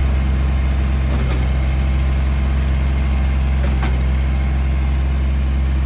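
Concrete mixer truck's diesel engine running steadily with a deep, even drone as the truck drives slowly over dirt.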